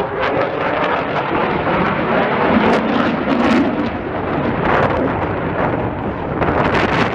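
Loud, steady roar of an RAF Eurofighter Typhoon's twin EJ200 jet engines as the fighter flies its display pass overhead.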